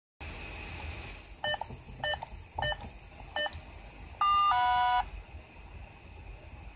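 An Arduino code panel's buzzer gives four short beeps, one for each digit keyed in. At about four seconds comes a longer, louder two-tone buzz that drops in pitch, signalling that the code entered was rejected as wrong.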